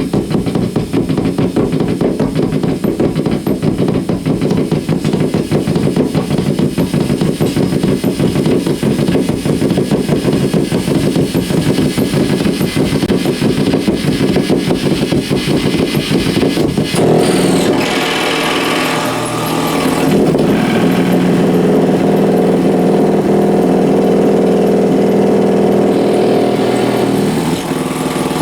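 Amplified electrical buzz picked up by exposed guitar cables from dimmed compact fluorescent bulbs, which flicker because they cannot properly dim. A fast, dense pulsing buzz gives way suddenly, a little over halfway through, to a steadier, higher, engine-like drone with a shrill edge.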